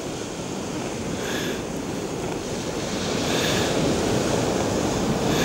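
Surf washing on a shingle beach with wind rushing over the microphone, the rush swelling gradually.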